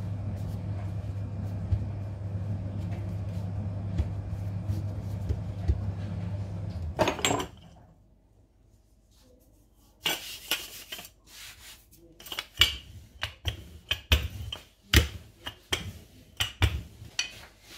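A steady low hum for about the first seven seconds. Then, after a short quiet, a wooden rolling pin rolls out dough on a countertop, with a run of sharp knocks and clatters.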